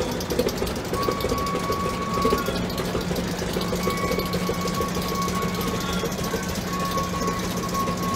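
Small Plymouth switcher locomotive's engine running under load as it pulls an open passenger car slowly along the track. There is a rapid, even clatter over a steady hum, and a thin whine comes and goes from about a second in.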